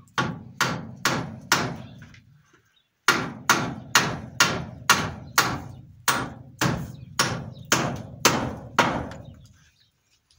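Hammer driving nails into wooden barn boards: four blows, a pause of about a second and a half, then a steady run of about fourteen blows at roughly two a second, each with a short ring after it.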